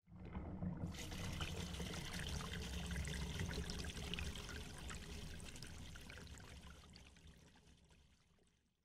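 Water splashing and trickling sound effect of an animated logo sting, filling in over the first second and then fading slowly out to silence.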